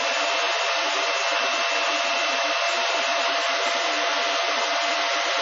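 Silverfish 28 MH/s Litecoin miner's cooling fans running: a loud, steady rush of air with a steady hum and a higher whine on top.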